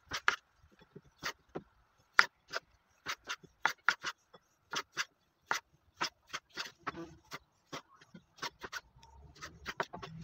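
Kitchen knife chopping small tomatoes on a wooden cutting board: a run of sharp, irregular knocks of the blade striking the board, a few a second.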